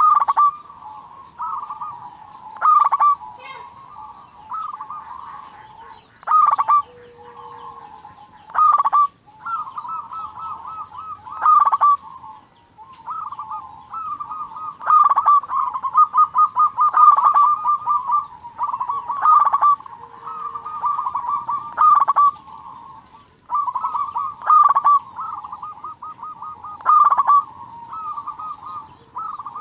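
Zebra dove song: steady, rapid staccato cooing, with a louder phrase about every two to three seconds.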